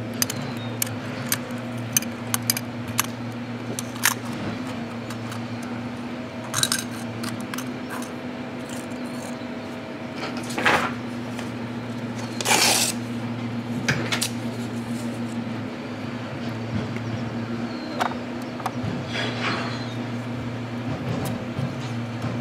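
Toy garbage truck play: light clicks and clinks from a First Gear front-loader model and its Curotto Can being worked by hand, with a small cart tipped into the can. There are a few louder clattering rattles about ten and twelve seconds in, over a steady low hum.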